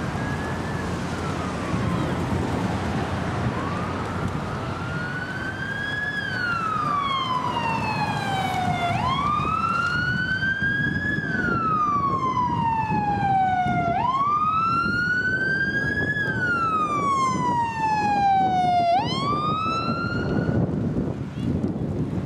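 Emergency vehicle siren on a wail, rising quickly and falling slowly in pitch about every five seconds, faint at first, then plain, stopping shortly before the end. A steady low rushing noise runs underneath.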